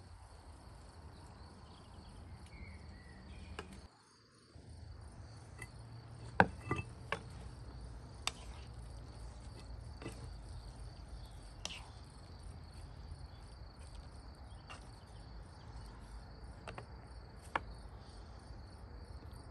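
A steady high-pitched trill over a low hum, broken by scattered sharp clicks and knocks, the loudest about six and a half seconds in.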